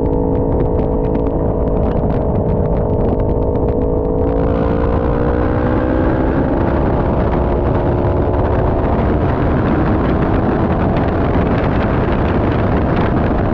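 A 400cc sport bike's engine pulling hard under acceleration, its pitch rising slowly as the bike gathers speed onto a straight. Wind rush jumps up about four seconds in and stays loud.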